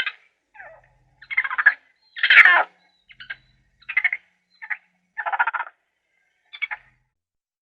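An animal giving a series of about ten short, pulsed calls with brief gaps between them.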